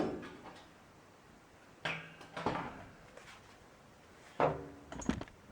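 Sheet-metal furnace access panel being handled and set aside: two short scrapes and knocks, the second the louder.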